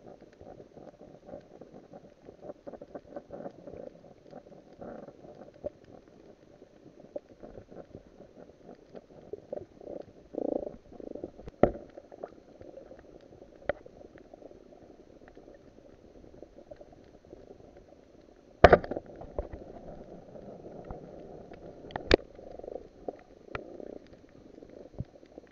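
Muffled underwater wash heard through a camera's waterproof housing, with scattered sharp clicks. About two-thirds of the way in comes a loud sharp crack, the speargun firing, and another loud click about three seconds later.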